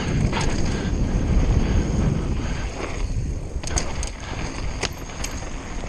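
Mountain bike descending a loose downhill trail at speed: wind rushing over the action-camera microphone with the rumble and rattle of a Conway WME's tyres and frame over the ground, and a few sharp clacks a little past halfway.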